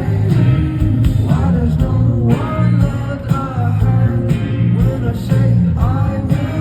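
Live rock performance: a singer over band accompaniment with guitar and a strong bass line.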